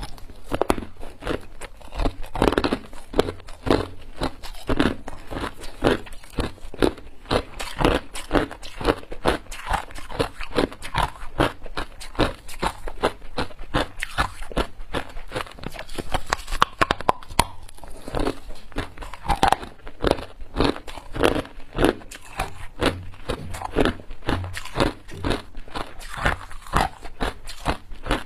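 Close-miked crunching of hard ice: a person bites chunks off a long block of clear ice and chews them, making dense, irregular crackling and cracking that goes on continuously.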